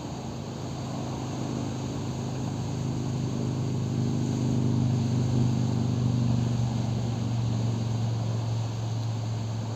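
A distant engine hum, low and steady in pitch, growing louder over the first half and easing off near the end, over a rush of wind.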